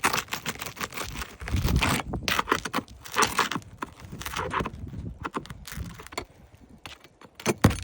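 A pry bar scraping and levering under roof shingles, with crackling as the brittle shingle tears, amid irregular scrapes and clicks and one sharp knock near the end.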